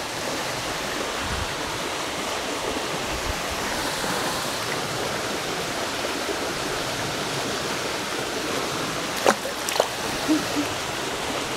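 Swift water rushing steadily through a small ditch culvert. Two sharp knocks and a few lighter ones come near the end.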